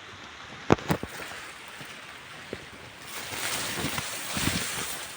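Hiss of rain falling, mixed with wind, swelling louder about three seconds in. Two sharp clicks come about a second in.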